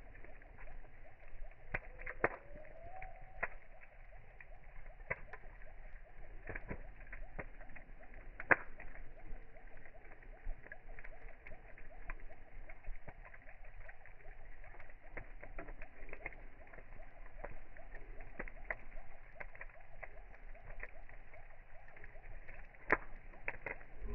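Wood fire crackling in a steel fire pit, with scattered sharp pops and snaps; the loudest pops come about a third of the way in and near the end. The sound is slowed down along with the slow-motion footage, so the crackles sound deeper and drawn out.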